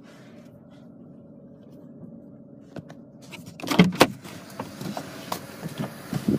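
A steady low hum from the car, then two loud sharp knocks about four seconds in, followed by rustling and light clattering.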